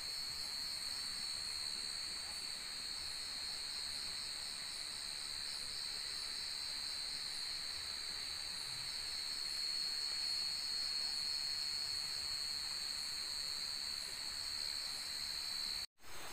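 Chorus of night insects such as crickets, a continuous high chirring with a faint regular pulse in it, cutting off suddenly near the end.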